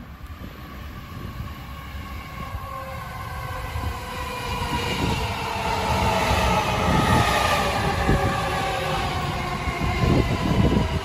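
A 209 series electric commuter train pulls in and slows: its traction motor whine falls steadily in pitch and grows louder as it nears. Near the end the wheels clatter over the rail joints.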